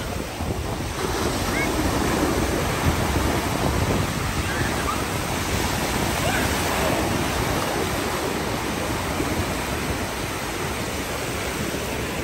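Sea surf: small waves breaking and washing over the shallows in a steady rush, with wind buffeting the microphone.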